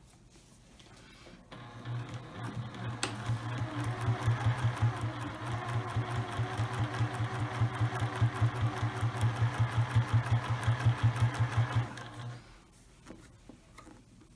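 Electric domestic sewing machine running a straight stitch through a fabric strip, the needle strokes ticking rapidly over a steady motor hum. It picks up speed at the start and stops abruptly near the end.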